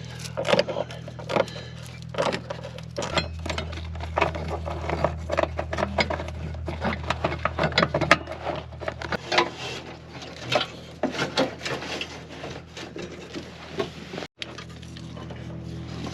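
Rapid, irregular clattering and clicking of hand tools and metal parts during work on a car's dash wiring, over a steady low hum. The sound cuts out briefly near the end.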